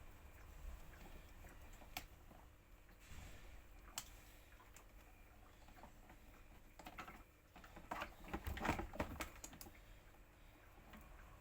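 Faint scattered sharp clicks of small hard objects being handled, with a busier run of light clattering clicks about seven to nine seconds in.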